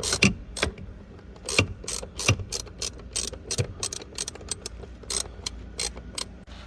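Irregular metallic clicks and scrapes of a hand tool working the bolts loose on a car's foot-pedal pad.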